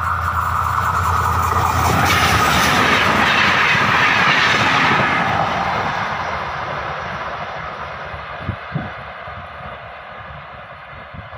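Locomotive-hauled passenger train passing at speed: the rush and clatter of its wheels on the rails builds to a peak about two to five seconds in, then fades away as the train recedes. Two short thumps come near the end.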